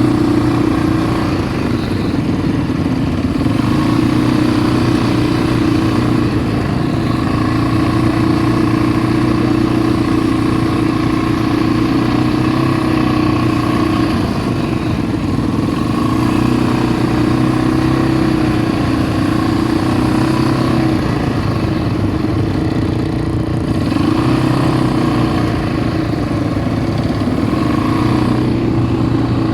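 ATV engine running continuously while riding, its pitch rising and falling slightly with the throttle.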